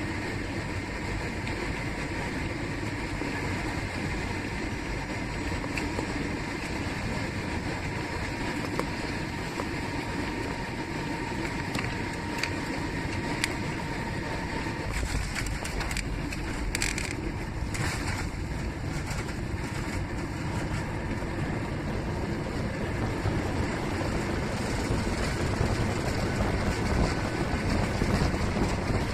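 Steady rumble and rush of a passenger airliner heard from inside the cabin: engine and airflow noise, with a few short knocks around the middle and the noise swelling somewhat near the end.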